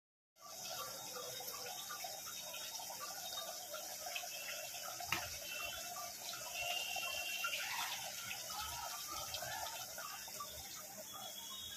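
Thick masala gravy with potatoes bubbling and sizzling in an aluminium pot on the stove, a dense patter of small pops, with a single sharp knock about five seconds in.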